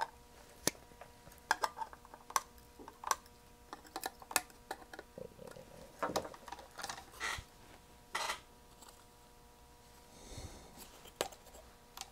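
Light clicks and taps from handling a circuit board in a clamping PCB holder, scattered throughout, with brief rustling about six and eight seconds in, over a faint steady hum.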